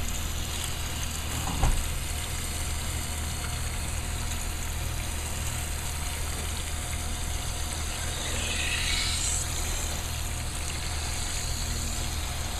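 Warm water pouring steadily from a plastic jug onto dry Jiffy peat pellets in a concrete mixing tub: a continuous splashing hiss over a low steady hum, with a single knock just under two seconds in.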